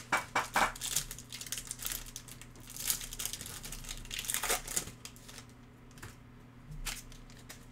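Foil trading-card pack wrapper being crinkled and torn open by hand, in several bursts of crackling, followed by a couple of light ticks.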